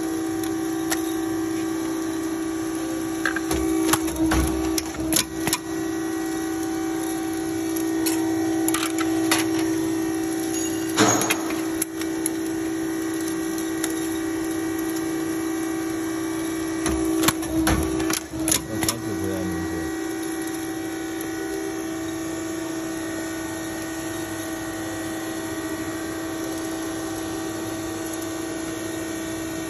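Hydraulic fan-blade riveting machine running with a steady hum from its hydraulic unit. Over the hum come clusters of sharp clanks and clicks from riveting strokes and sheet-metal blade parts being handled: around 4–5 seconds in, near 9 and 11 seconds, and again around 17–19 seconds. After that only the hum remains.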